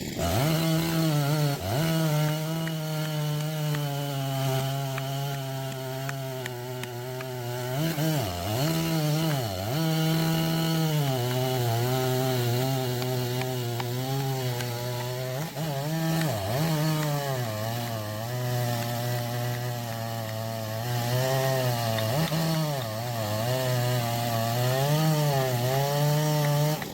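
Husqvarna 3120 XP, a big single-cylinder two-stroke chainsaw, running at high revs as it cuts through a large log. Its pitch sags briefly several times as the cut loads it, then picks back up.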